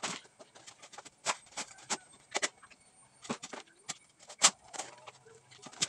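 Shovel digging into soil and tipping it into a wheelbarrow: a string of sharp scrapes and knocks at irregular intervals, the loudest about four and a half seconds in.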